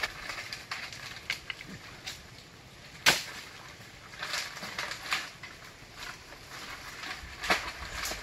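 Scattered rustling, scraping and clicks from a coconut palm's fronds and coconut clusters as a climber works among them at the top of the trunk, with a sharp crack about three seconds in and another near the end.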